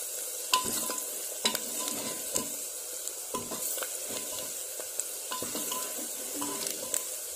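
Onions, green chillies and turmeric sizzling in hot oil in an aluminium pressure cooker while a steel ladle stirs them. The ladle scrapes and knocks against the pot irregularly, about once a second, over a steady sizzle. The turmeric is being fried into the onion masala.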